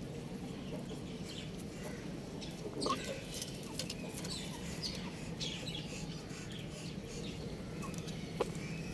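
Young chickens chirping: scattered short, high peeps, with two brief louder calls about three seconds in and near the end, over a steady low background hum.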